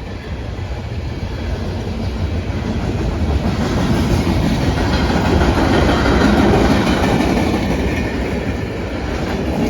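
Freight cars of a Canadian Pacific manifest train rolling past close by, a steady rumble and clatter of wheels on rail that swells louder around the middle and eases a little near the end.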